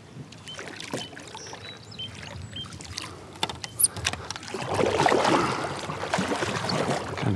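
Kayak paddle strokes: the blade pulling through the water with splashing and dripping, loudest in the second half. Scattered light clicks and knocks come first.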